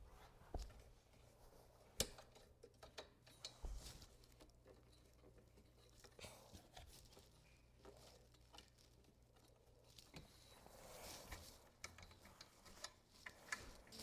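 Faint scattered clicks and taps of handling, with one sharper click about two seconds in and a small flurry of them near the end.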